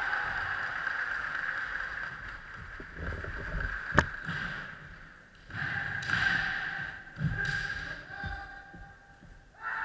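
Kendo fighters' long, drawn-out kiai shouts, with one sharp crack of a bamboo shinai strike about four seconds in. The shouts fade briefly after the strike and start again.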